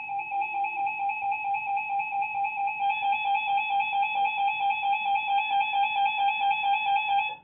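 Weather radio receiver's alert alarm sounding for an incoming warning: a single electronic tone beeping rapidly, about five pulses a second. It gets a little louder and harsher about three seconds in and cuts off abruptly.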